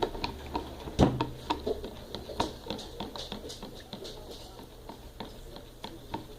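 A utensil stirring a wet mix of gelatin, warm water and salt in a container: irregular clicks and taps against the sides, with a louder knock about a second in, getting a little quieter toward the end.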